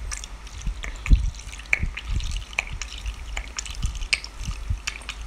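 Soy sauce squeezed from a plastic squeeze bottle into a plastic measuring cup: irregular dripping and bubbly little pops as the liquid pours in, with a low thump about a second in.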